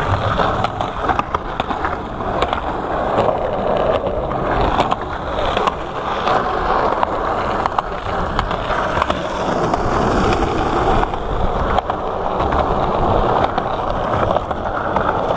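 Skateboard wheels rolling on a concrete sidewalk: a steady rumble with short clicks now and then as the wheels cross the seams between slabs.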